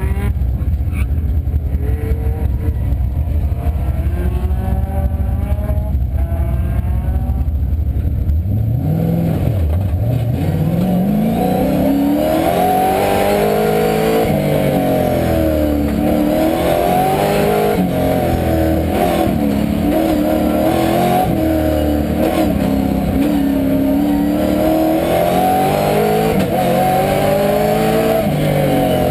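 1973 Chevrolet Camaro's engine heard from inside the cabin: idling steadily for about eight seconds, then revving up hard on the launch and rising and falling in pitch again and again as the car accelerates and slows between turns.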